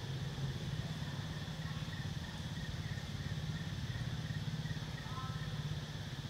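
A steady low engine hum, with a fast even pulse, from a motor idling. Faint short high chirps come through about five seconds in.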